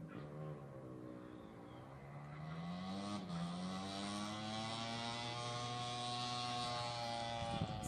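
An engine drones, growing louder. One tone holds a steady pitch while another climbs slowly over a few seconds and then levels off.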